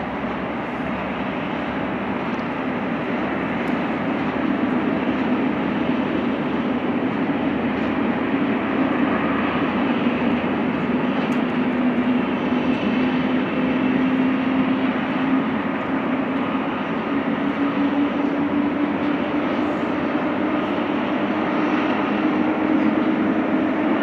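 Jet engines of a FedEx wide-body freighter taxiing at low power: a steady rushing noise with a low hum that slowly rises in pitch and grows a little louder.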